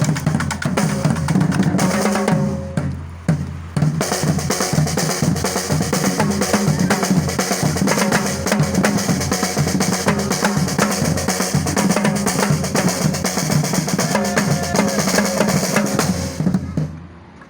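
Music driven by a drum kit with a steady beat; it dips briefly about three seconds in and fades out near the end.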